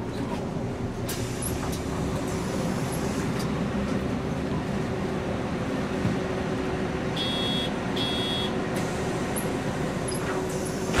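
MAN NG 313 articulated city bus running steadily. Two short, high electronic beeps sound about seven and eight seconds in.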